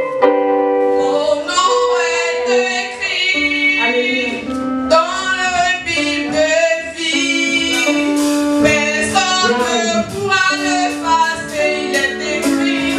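A group of women singing a gospel praise song into microphones, their held and sliding notes carried over the church PA, with some percussion strokes in the second half.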